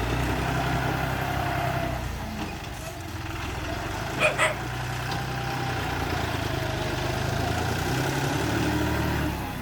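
Bulldozer's diesel engine running with a steady low drone, easing for a moment and then picking up again. Two short sharp sounds come close together about four seconds in.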